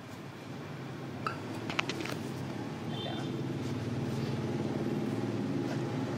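A steady low motor hum, like an engine running nearby, growing a little louder about halfway through, with a few light clicks near the start.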